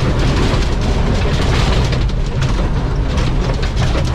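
Old fire truck's engine running under load as the truck drives over rough ground, with frequent knocks and rattles from the body.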